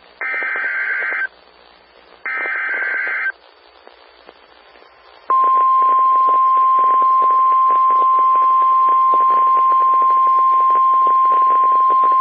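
NOAA Weather Radio Emergency Alert System signal: two harsh, buzzy digital header bursts of about a second each, a second apart, over faint radio hiss. About five seconds in, a single steady high alarm tone starts and holds, the weather radio's warning tone that marks the start of an alert, here a required monthly test.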